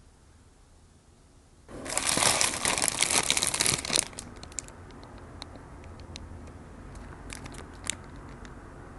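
Paper burger wrappers crinkling as wrapped burgers are picked up and handled: a loud burst of crinkling starting about two seconds in and lasting about two seconds, then softer scattered crinkles and ticks of the paper.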